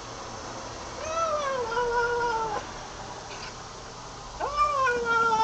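Kitten meowing loudly: two long, drawn-out meows, the first about a second in and the second near the end, each dropping in pitch and then holding steady.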